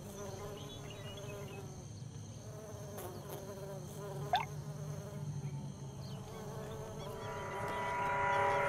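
Orchid bees buzzing in flight, a steady wavering drone of wingbeats. A short rising whistle comes about four seconds in, and music swells in near the end.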